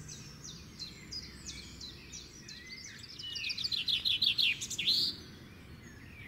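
Small birds chirping: a string of short, high, falling chirps, with a louder rapid run of notes from about three to five seconds in.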